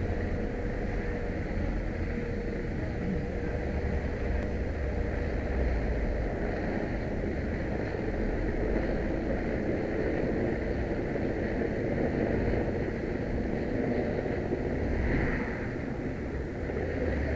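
Cars and vans of a race convoy driving past one after another, giving a steady wash of engine and tyre noise.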